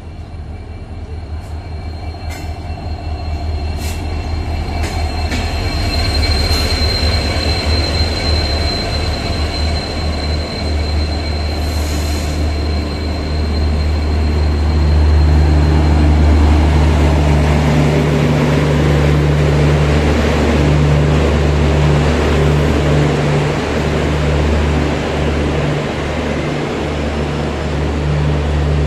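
Diesel-hauled express train rolling slowly past along a platform: a steady low diesel engine hum that grows louder as the train comes nearer. A thin, high wheel squeal runs through the first ten seconds, then the broad rumble and rattle of coaches rolling by takes over.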